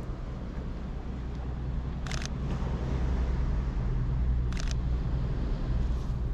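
Sony a7 IV camera shutter firing twice, about two and a half seconds apart, over a low rumble that grows louder partway through.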